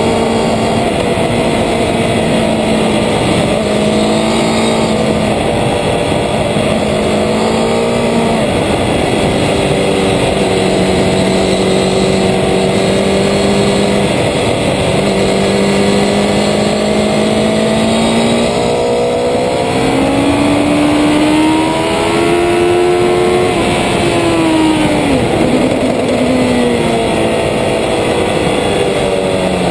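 Racing motorcycle engine at high revs on track, heard close from a camera mounted low on the bike, with wind rushing over it. The engine note holds and steps in pitch through gear changes, climbs for several seconds about two-thirds through, then falls away.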